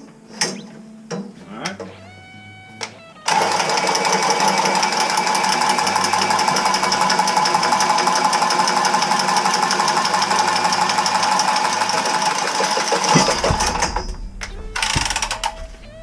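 Cordless power cutter cutting through old water-heater supply pipe. It starts suddenly about three seconds in and runs steadily with a fast, even rattle for about ten seconds, then winds down. A shorter burst comes near the end.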